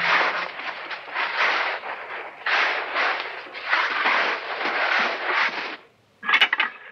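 Water pouring and splashing into metal buckets in uneven surges. It breaks off about six seconds in, and a short splash follows.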